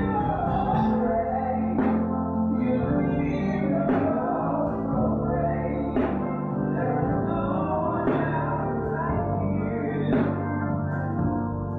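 Gospel music with sustained keyboard chords, a sharp accented hit about every two seconds, and singing over it.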